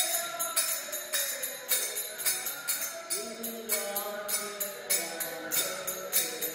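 Indian-style music: jingling percussion strikes a fast, steady beat under a melodic line that glides in pitch.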